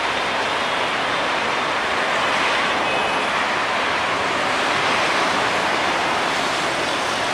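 Express passenger train rolling along the track: a steady rushing noise of wheels on rails, with no horn or engine note standing out.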